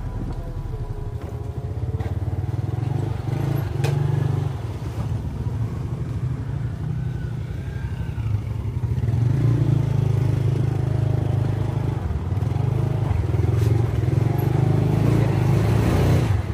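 Motorcycle engine running while the bike is ridden: a steady low drone that swells and eases with the throttle, louder from about halfway through.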